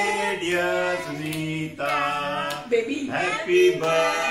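A group of men and women singing a song together without instruments, a man's voice the strongest, the notes held and stepping from one to the next. A few hand claps come in here and there.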